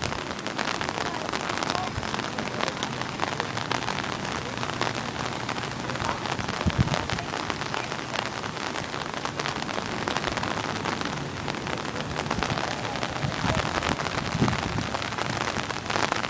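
Steady hissing wash of water, rain-like, with fine pattering throughout, from the flooded river or rain falling on it. A brief low knock about halfway through.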